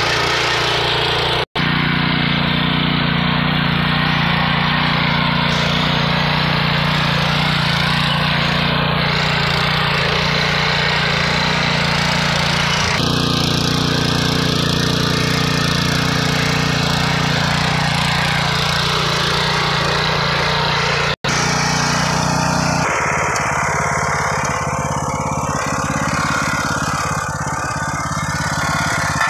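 Small engine of a walk-behind mini tiller running under load, its rotating tines churning loose soil in a steady loud drone. The sound drops out for an instant twice. Near the end the engine note becomes more pulsing, with less of the churning hiss.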